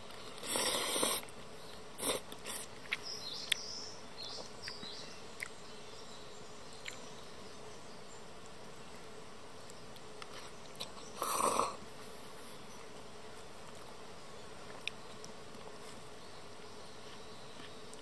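Steady buzzing of insects in woodland. Two short loud noisy bursts break in, one at the very start and one about eleven seconds in, with a scatter of light clicks a few seconds in.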